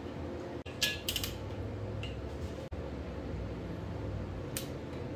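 A few light metallic clinks of a hand tool and small steel parts against an aluminium engine block, a quick cluster about a second in and one more near the end, over a steady background hum.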